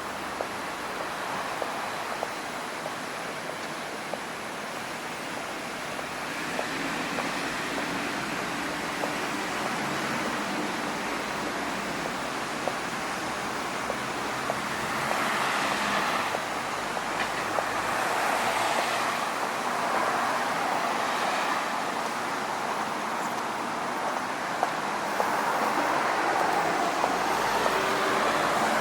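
Outdoor city street ambience: a steady wash of road traffic noise that swells several times as vehicles pass and grows gradually louder.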